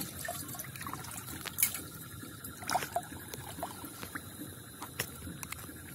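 Water trickling and dribbling as wet hands handle a jar of water and small fish over a plastic container, with scattered light clicks and taps.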